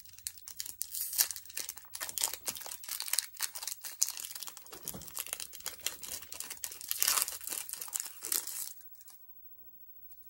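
Foil Pokémon TCG booster pack wrapper crinkling and tearing as it is opened by hand, a dense irregular crackle that stops about a second before the end.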